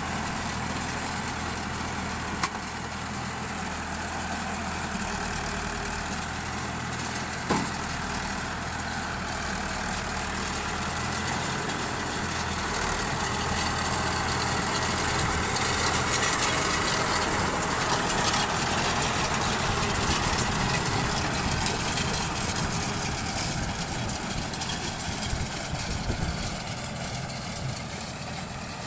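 Tractor engine running steadily while driving a round straw baler, with broad machinery noise. It grows louder through the middle and eases off toward the end. There is a sharp click about two seconds in and another about seven and a half seconds in.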